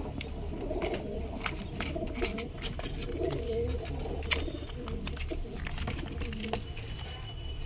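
Punjabi pigeons cooing in a loft box: continuous low, warbling coos with scattered sharp clicks.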